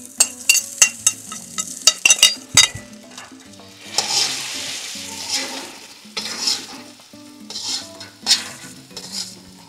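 Fried rice with egg and meat stir-frying in a hot wok, worked with a metal ladle and spatula. For the first few seconds the utensils clink and scrape sharply against the wok. After that the rice sizzles in swelling bursts as it is stirred and turned over.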